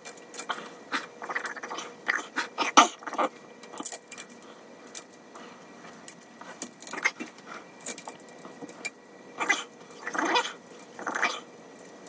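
Irregular clicks, taps and rubbing from small plastic and metal parts handled and fitted back onto a Prusa i3 MK3S extruder, with one sharp click and a few longer scraping bursts near the end. Under it runs a faint steady whine from the printer's fans.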